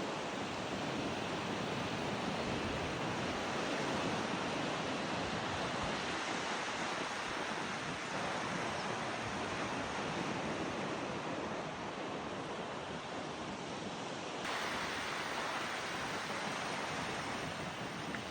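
Sea surf washing steadily onto a beach, a continuous rushing wash of waves, with some wind.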